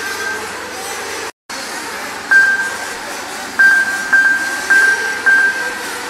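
Nitro-powered RC off-road cars running on an indoor track, their engines making a steady buzzing din in the hall. In the second half there are five short high beeps, each lasting about half a second.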